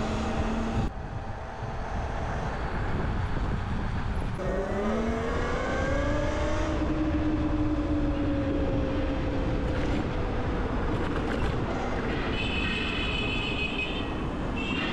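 Wind and road rush on the microphone of a moving ride. About four seconds in, a motor whine rises in pitch, then slowly falls away, and a higher tone sounds near the end.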